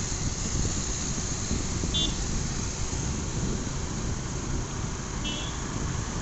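Wind buffeting the microphone over engine and road noise while riding a motorbike up a winding hill road. Two short high beeps sound about three seconds apart.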